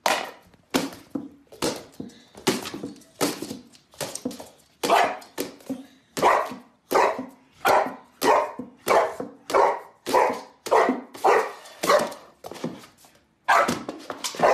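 Boxer dog barking over and over in play at a frisbee toy, about one and a half barks a second, with a short break near the end.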